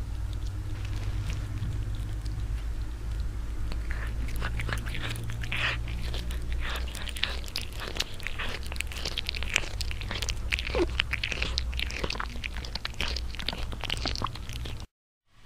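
Domestic cat purring right at the microphone, a steady low rumble. From about four seconds in there are crackly clicks and rustles as its face and whiskers rub against the camera. The sound cuts off abruptly shortly before the end.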